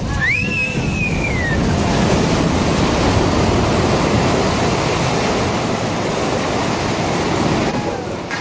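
Loud, steady rumbling roar of concrete rubble coming down as a demolished building's elevator shaft collapses; it starts suddenly and holds steady. A brief high tone rises and then falls near the start.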